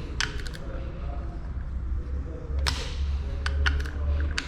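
Short metallic clicks of hand tools in small clusters, typical of a wrench or ratchet tightening bolts on the clutch of a Yamaha FZ 2.0 engine, over a steady low hum.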